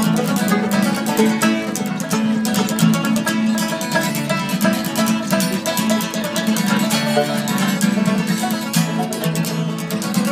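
Acoustic guitar strummed in a quick, steady rhythm, with short melody notes over the strumming.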